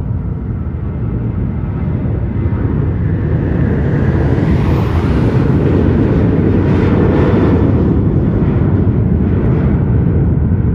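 Jet airliner engines rumbling, growing louder over the first few seconds and at their loudest in the middle of the stretch, with a hiss on top at the peak.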